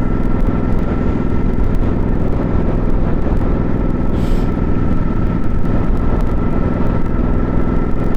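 Motorcycle engine and wind noise at a steady cruising speed, heard through a rider's helmet lavalier mic, with a brief hiss about four seconds in.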